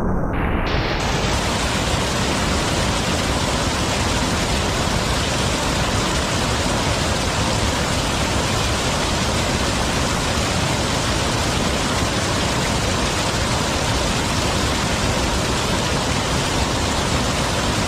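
Mountain valley stream rushing over rocks: a loud, steady, even rush of water with no change throughout.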